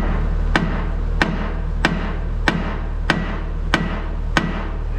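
About eight evenly spaced hammer blows, roughly one and a half a second, striking a steel pin that has worked out of its bore on an ASV SR-80 skid steer, with the machine's engine running underneath. The pin is stuck and is not moving back in.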